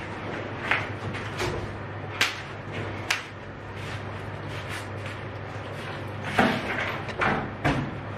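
Scattered knocks and clatters as a painter handles an airless spray gun and its hose, over a steady low hum; the loudest clatter comes about six and a half seconds in.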